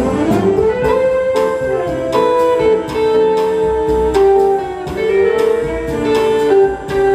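Live big-band jazz in a bossa nova feel: plucked chords and lines on an archtop electric guitar over long held notes from the saxophone section, with upright bass underneath.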